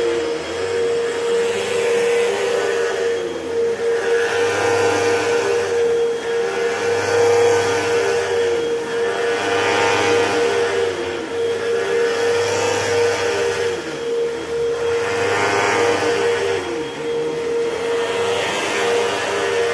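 Hoover WindTunnel 2 Whole House Elite upright vacuum cleaner running, very loud, with a steady high motor whine. Its pitch and loudness rise and fall in a regular cycle of about two seconds.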